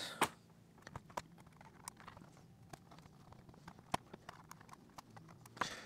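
Faint, irregular light clicks and taps from fingers working the laptop's small flex-cable connectors and plastic parts, about a dozen in all.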